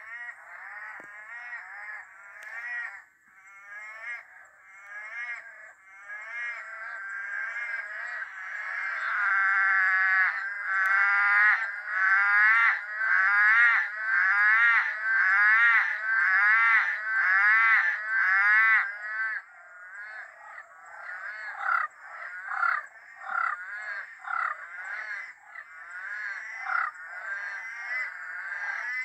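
A loud chorus of many frogs calling over one another. It swells about a third of the way in to a regular call about once a second, then breaks into shorter, separate calls.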